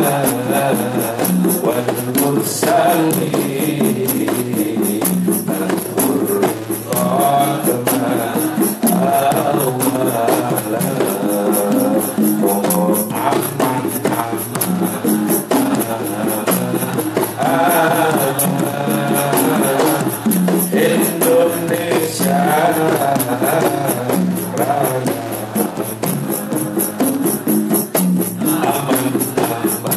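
Hadrah ensemble playing: rebana frame drums and a large bass drum beat a steady, busy rhythm while a group of men sing a devotional song in unison.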